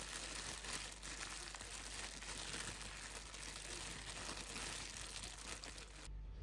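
Clear plastic bag crinkling and rustling as hands squeeze and knead spice-coated chicken pieces inside it. It is a continuous, irregular crackle that cuts off near the end.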